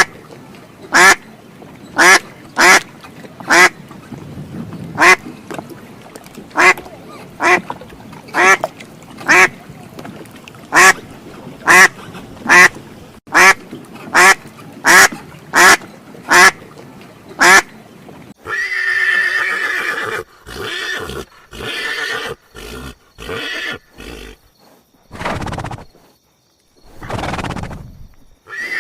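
A duck quacking: a long run of single short quacks, a little under one a second. About two-thirds of the way through it gives way to a horse whinnying in several longer, irregular bursts.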